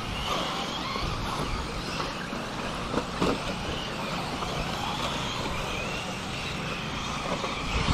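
Several RC buggies racing at once, their motors whining with a pitch that rises and falls as they throttle around the dirt track.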